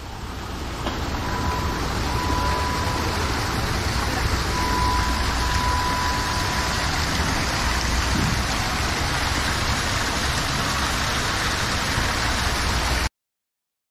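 Indoor artificial waterfall pouring steadily into a rock pond, a constant rushing splash that fades in over the first couple of seconds and cuts off suddenly near the end.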